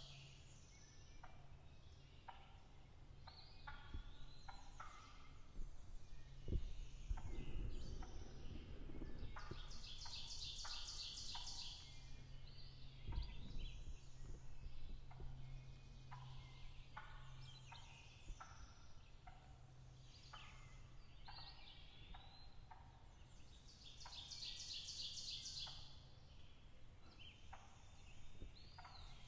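Wild turkey gobblers gobbling several times among songbird song. A high, rapid trill comes twice, about ten seconds in and again near the end.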